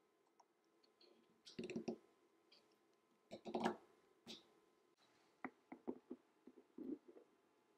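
Metal parts of a locking front hub clicking and clinking as they are handled and fitted together: scattered light knocks, the loudest in the middle, then a quick run of small clicks near the end.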